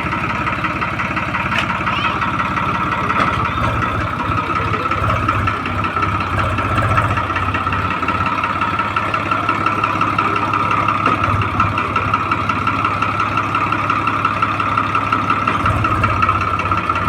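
Diesel engine of a JCB 3DX backhoe loader running steadily, with a constant whine over its low rumble.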